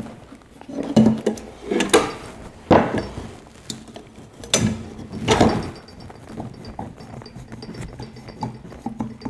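Pliers working a cotter pin in the steel frame of a broadfork: a series of irregular metal clicks and scrapes, the louder ones about a second apart in the first half. The pin has not been squeezed together far enough to slide out freely.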